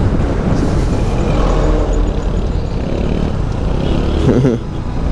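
Motorcycle engine and surrounding road traffic in a slow traffic jam: a steady noisy rumble of vehicles, with a short pitched sound about four seconds in.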